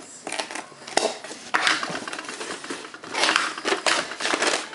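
Cardboard mailing box being pulled and torn open by hand: the flaps scrape and crackle in several noisy bursts.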